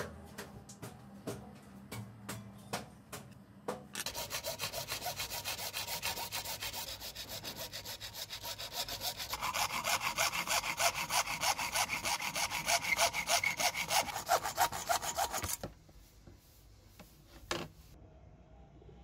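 Hacksaw cutting through a thin white sheet clamped in a bench vise, in rapid, even back-and-forth strokes. The sawing starts about four seconds in, gets louder midway and stops a few seconds before the end.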